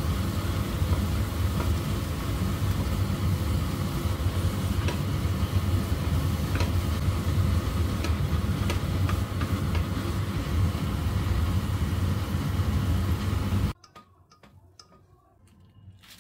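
Sliced onions deep-frying in oil in a pot: a steady sizzle over a low hum, with scattered taps of a silicone spatula against the pot as the onions are stirred while browning into birista. Near the end the sizzle cuts off suddenly, leaving faint small rustles and clicks.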